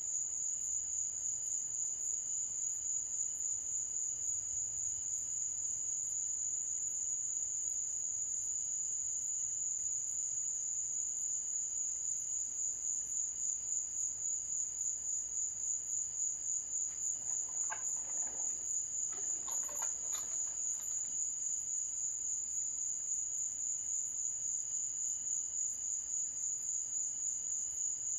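Crickets trilling at night in a continuous, steadily pulsing high chorus. A brief, fainter sound passes under it about two thirds of the way through.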